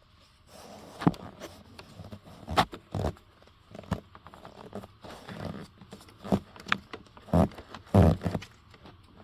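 Hands working plastic wiring clips back into place: scattered clicks, knocks and scrapes, with a few heavier thumps near the end.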